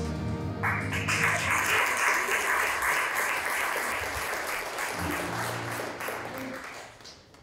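Audience applauding, starting suddenly about a second in and fading out near the end, as the last notes of the video's music die away.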